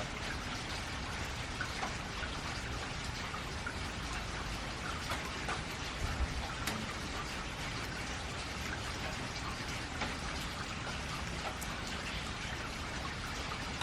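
Steady rain falling on a metal roof, with many small drop ticks over an even hiss.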